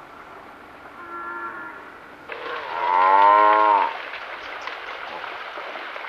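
Cape buffalo calling: a short, quieter call about a second in, then a loud, long call near the middle that drops in pitch as it ends.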